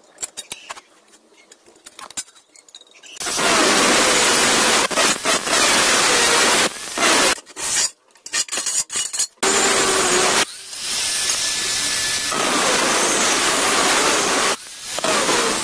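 Hand-held angle grinder with an abrasive cut-off disc cutting through steel square tubing: a loud, even grinding hiss with a faint whine, in several long stretches broken by short gaps. About three seconds in it starts, after a few light clicks of the metal tube being handled and marked.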